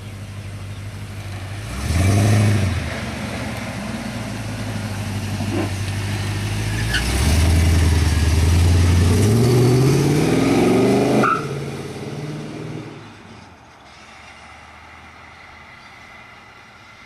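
Holden VN Clubsport's V8 engine running, with a short rev about two seconds in, then a longer rev climbing in pitch for several seconds before dropping off sharply. It settles back and grows quieter toward the end.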